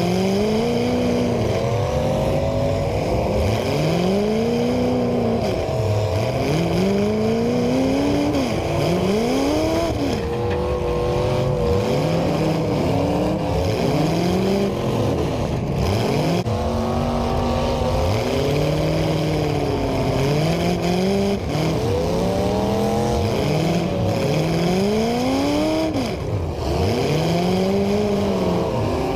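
Demolition derby cars' engines revving up and falling back again and again, several at once and overlapping.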